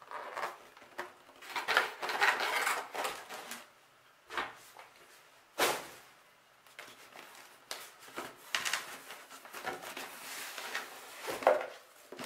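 Rigid cardboard packaging being handled: irregular rustling, scraping and sliding of the box's inserts and lid. There are a few sharp knocks, the loudest about five and a half seconds in.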